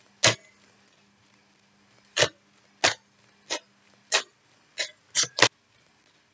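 A deck of cards being shuffled by hand, giving eight short, sharp slaps of the cards at uneven intervals, with several coming close together near the end.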